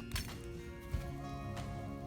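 Instrumental background music with held notes and a few short taps.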